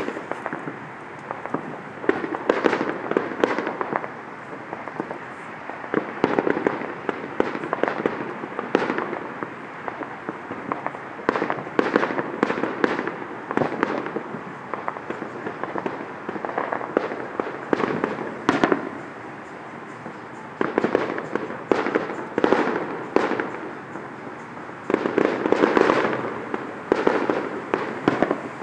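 Fireworks and firecrackers going off around a city neighbourhood: many irregular bangs and pops throughout, some in rapid crackling clusters, over a steady background noise.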